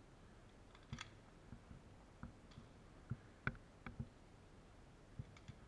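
Faint, irregular clicks and knocks of a player's footsteps and gear while moving, about ten in all, the sharpest about three and a half seconds in.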